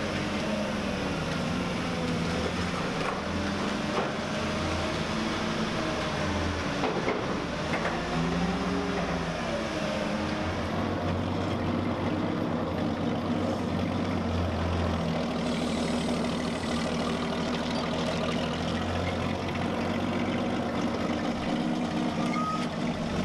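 Forklift engine running steadily, its speed rising and falling a few times about a third of the way in as the forklift moves a heavy coiled tank track.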